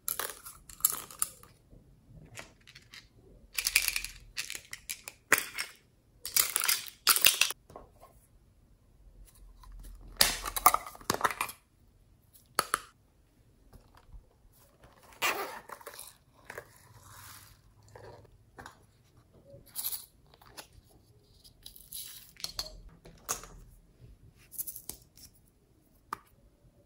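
Small plastic containers of slime add-ins being handled, opened and emptied over a bowl of glossy slime, with beads, glitter and confetti tipped in. It comes as irregular bursts of handling noise with short pauses between.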